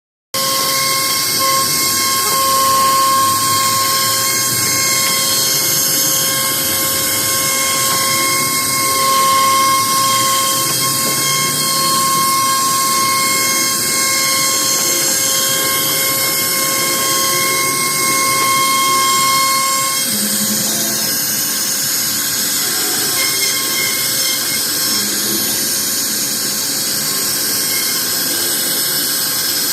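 CNC router spindle running steadily with a high-pitched whine as it cuts wood. The tone changes about twenty seconds in.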